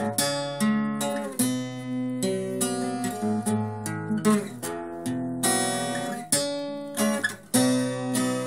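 Twelve-string acoustic guitar played alone: a picked and strummed instrumental passage of chords and single notes, with no singing.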